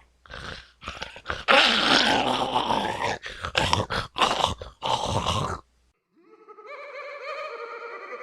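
Horror sound effect of a beast growling and snarling in a string of rough, irregular bursts. It stops about five and a half seconds in, and soon after an eerie, wavering sustained tone fades in.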